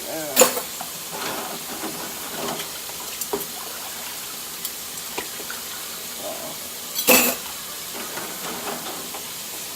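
Tap water running steadily into a kitchen sink during hand dishwashing, with two loud clatters of dishes, about half a second in and again about seven seconds in.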